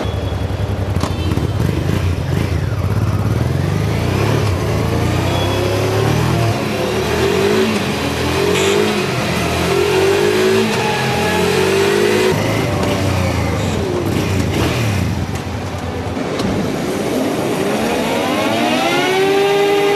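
Motorbike engine being revved up and down several times, then a long rising rev that holds at high pitch near the end.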